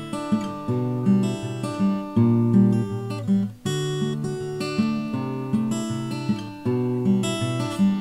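Solo instrumental music on acoustic guitar: a slow impromptu tune of plucked notes and light strums, a new note or chord about every half second.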